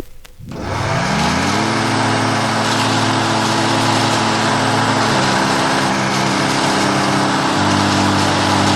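A motor spins up over about a second and then runs steadily, with a loud hiss over its hum; its pitch shifts slightly a couple of times.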